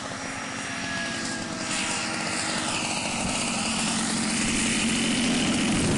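Radio-controlled model airplane's engine and propeller running as it flies low over the field, growing louder as it comes closer, its pitch dipping and rising again around the middle.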